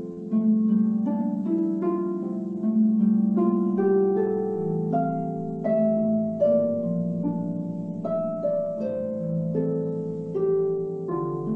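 A harp being played solo: a melody of plucked notes, each ringing on into the next, over lower bass notes, heard through a Zoom video call.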